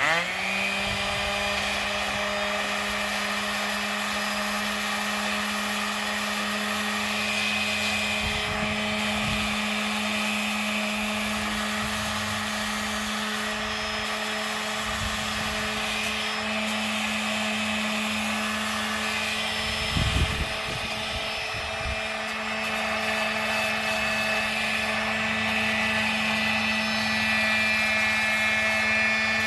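Electric sander switched on, spinning up with a quick rising whine and then running steadily while sanding the edge of a board, with a brief knock about twenty seconds in.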